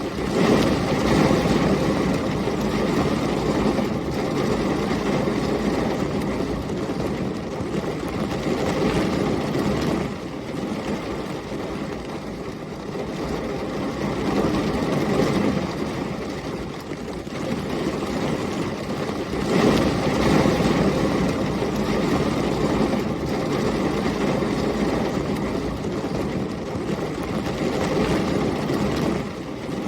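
Heavy rain pouring steadily, with rumbles of thunder swelling in and out every several seconds, the strongest about a second in and again about twenty seconds in.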